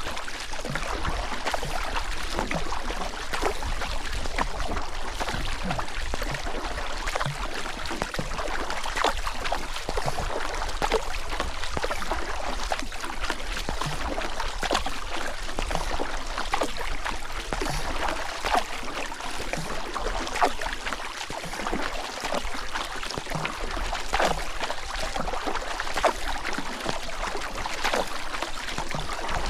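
River water rushing and splashing steadily, with many small splashes throughout.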